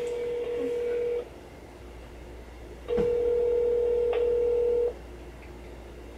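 Ringback tone of an outgoing call on a smartphone's speakerphone, ringing and not yet answered. A steady low tone cuts off about a second in, then sounds again for about two seconds after a pause.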